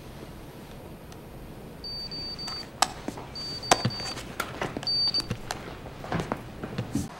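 Three high electronic beeps from laboratory equipment, the first two about half a second long and the third shorter, mixed with sharp clicks and knocks of things being handled on a lab bench.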